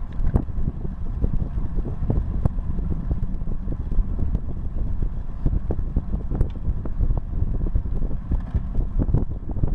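Wind buffeting the microphone of a bike-mounted camera on a road bike at about 30 km/h, with a steady low rumble from the tyres on the asphalt path. Short clicks and knocks come throughout.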